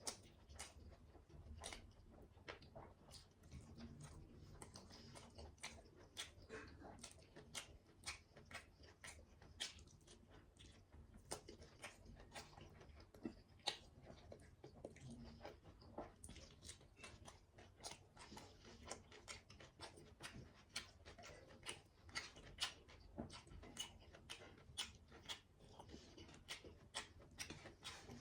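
A person eating close to the microphone: soft chewing with frequent small wet clicks and smacks, a few each second, irregular.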